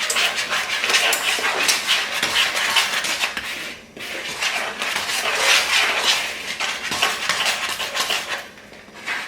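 A spoon stirring flour and other dry ingredients in a mixing bowl, scraping and clinking against the bowl in quick irregular strokes. There is a brief pause a little under four seconds in.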